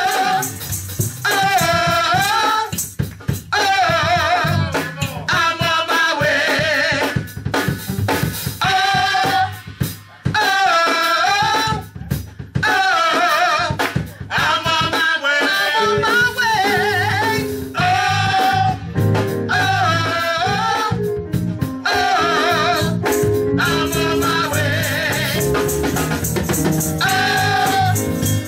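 Amplified gospel singing by a small group of men's and women's voices, the lead lines wavering with heavy vibrato, over a steady beat of drums and rattling percussion.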